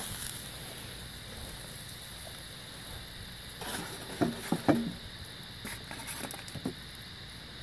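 Steak sizzling on a hot cast iron griddle fades out in the first moment. Then a handful of short clicks and rustles as metal tongs handle seared steak pieces in an aluminium foil pouch.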